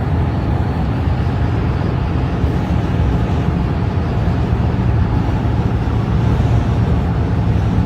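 Steady low rumble of a motor vehicle driving, with an even hiss above it.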